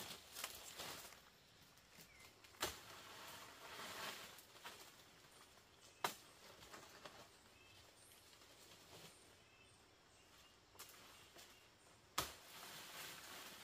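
Three sharp knocks a few seconds apart, the last the loudest with a brief ring after it, with rustling and scraping in between: bamboo being cut and handled in shelter building.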